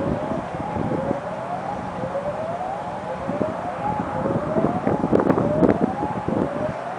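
A distant outdoor warning siren sounding a repeating rising whoop, each tone climbing in pitch and dropping back about once a second, with wind buffeting the microphone.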